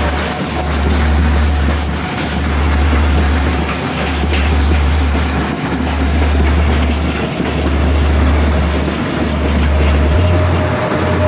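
Freight train running: steady rumble and rail noise of a wagon in motion, under a deep low drone that breaks off briefly about every second and a half and changes pitch near the end.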